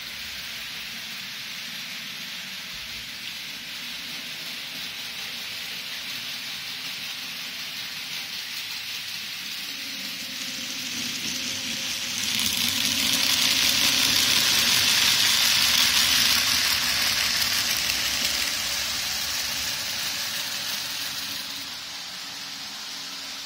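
An N-gauge model train runs past over a steady hiss. The running noise of the locomotive and ore wagons on the track rises from about ten seconds in, is loudest for several seconds as the train passes, then fades away.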